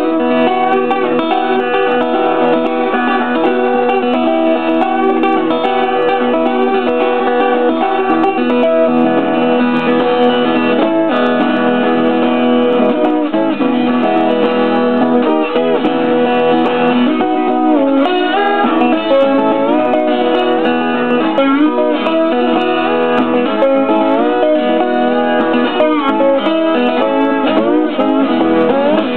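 Twelve-string acoustic guitar played fingerstyle with a slide: busy picked notes, with many of them gliding up and down in pitch.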